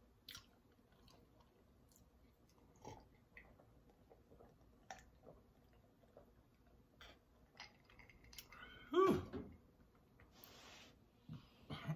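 Close-miked drinking sounds: faint swallowing gulps and small wet mouth clicks as juice is drunk from a glass. About nine seconds in comes a short voiced sound from the drinker, then a brief breathy exhale.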